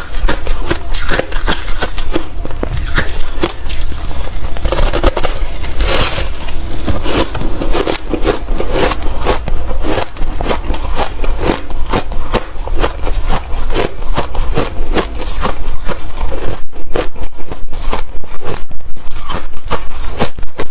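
Hard, refrozen crushed ice being chewed close to the microphone: dense, loud crunching and crackling. Near the end it settles into a steady chewing rhythm of about three crunches a second.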